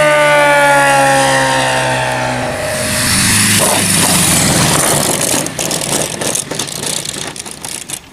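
Saito FG57 four-stroke petrol engine of a large RC model plane running, its note falling in pitch over the first couple of seconds. The sound then turns rougher and fades, becoming uneven from about five seconds in.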